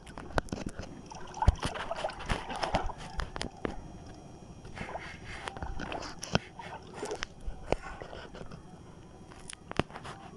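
Water sloshing against a small outrigger boat's hull, with irregular sharp clicks and knocks as line is cranked in on a jigging reel.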